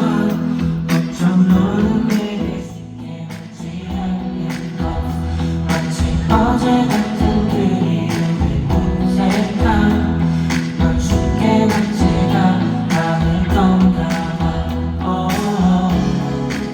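Live pop song: singing over a band or backing track with a steady beat, dropping back briefly about three seconds in before building again.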